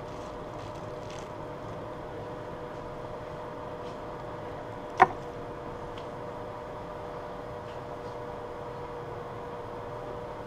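Gas stove burner running at medium heat, a steady hiss under a pan of melting butter, with a steady hum; one sharp click about five seconds in.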